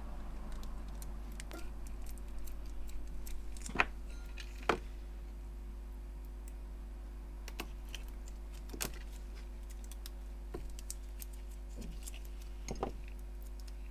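Scattered light clicks and taps of small tools and fingers handling a phone battery and its flex cable on a workbench, over a steady low electrical hum.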